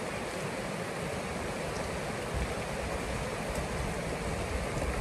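A stream rushing steadily, a continuous even wash of flowing water.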